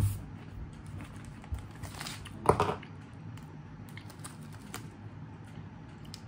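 Small clicky crunches of a person chewing an Oreo cookie, with a short, loud crinkle of the plastic cookie packet being handled about two and a half seconds in.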